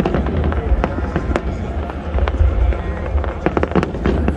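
Aerial fireworks bursting overhead: a rapid, irregular run of sharp bangs and crackles over a constant low rumble.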